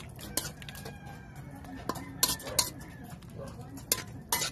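Metal spoon stirring food in a metal wok, clinking and scraping against the pan in several sharp, irregular knocks.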